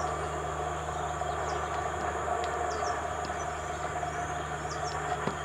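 Steady outdoor background noise with a constant low hum, and short high chirps scattered through it.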